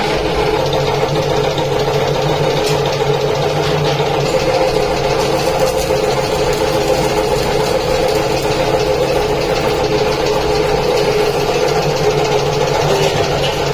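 A machine's motor or engine running steadily with a constant hum, no change in speed.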